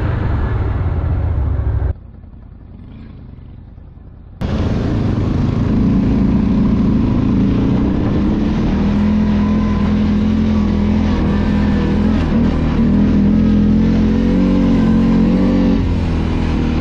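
ATV engines running as the quads ride along a grassy trail, picked up by a camera mounted on a quad. The sound drops abruptly to a quieter level about two seconds in and comes back loud after about four and a half seconds. From there the engine runs steadily, its pitch rising and falling slightly.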